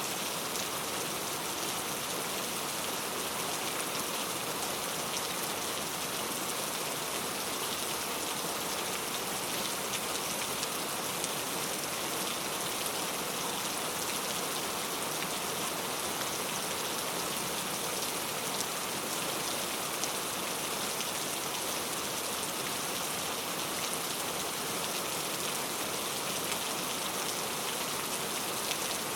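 Steady rain falling, an even hiss with dense small drop patters.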